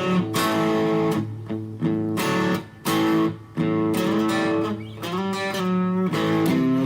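FGN Stratocaster electric guitar played through a Fender Studio Valve SVH tube amp, with the cable plugged straight in. Strummed chords and riffs, with two brief stops in the middle.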